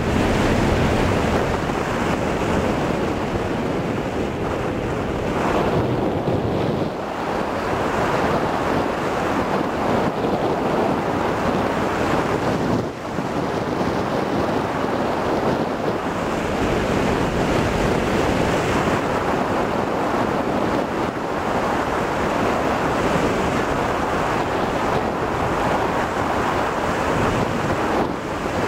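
Wind noise from the airflow of flight rushing over the microphone of a camcorder taped to a hang glider's control bar: a steady, loud rush with a couple of brief dips.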